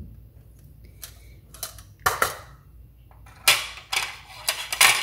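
Sharp metallic clinks and knocks from a stainless-steel spice box and measuring spoon being handled and set down on a granite counter: one about two seconds in, then a quick run of clatters in the last second and a half.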